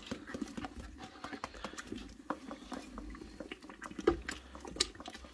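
Granulated sugar pouring out of a stainless steel bowl into a pot of hot apple mash, a soft pattering hiss with scattered light ticks as a spoon stirs the pot. A couple of slightly louder clicks come around four and five seconds in.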